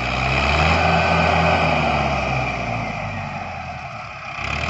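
Mahindra Arjun 555 DI tractor's diesel engine running hard as it pulls a heavy tandem disc harrow. It is loudest over the first two seconds, then eases off a little before picking up again near the end.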